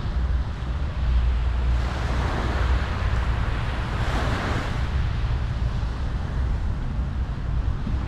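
Ocean waves breaking and washing up the beach, swelling twice, about two and four seconds in, over a steady low rumble of wind on the microphone.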